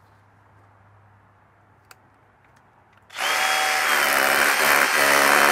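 Cordless drill starting about three seconds in and running steadily at full speed with a high whine, working a fastener into a hole in the brick wall to secure a conduit strap.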